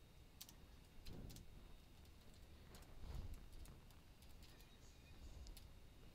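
Faint computer keyboard typing: scattered, irregular key clicks over a low steady hum, with two soft low rumbles about one and three seconds in.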